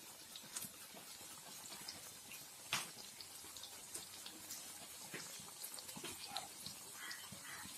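Egg-dipped, rusk-crumb-coated bread pockets deep-frying in hot oil: a faint steady sizzle with scattered crackles and pops, one sharper pop a little under three seconds in.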